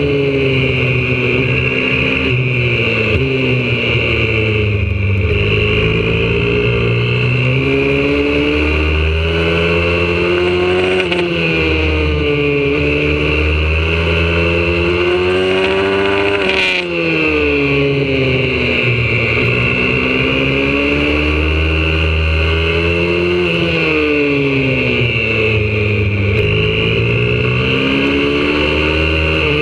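YCF 125cc four-stroke pit bike engine heard from on board at racing pace. Its pitch climbs and falls again and again as it accelerates through the gears and backs off for the corners, with one sharp drop about halfway through.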